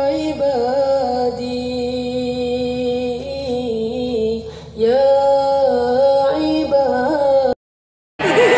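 Slow singing with long held notes in two phrases, with a short break about four and a half seconds in. It cuts off suddenly near the end.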